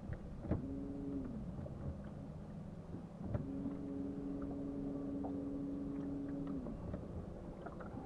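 Electric trolling motor whining in two runs. The first is short and starts about half a second in; the second is steady from about three and a half seconds to near seven. Each starts with a click and drops in pitch as the motor spins down.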